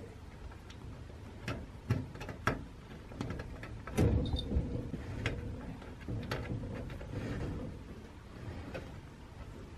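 Wooden sliding door with glass panes knocking and rattling in its track as a cat pushes and paws at it from the other side, sliding it open a little. A series of separate knocks, with the loudest, longest rattle about four seconds in.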